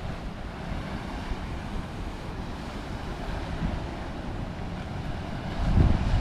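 Surf breaking against the rocks at the foot of a sea cliff, heard under wind rumbling on the microphone. The wind rumble gets louder near the end.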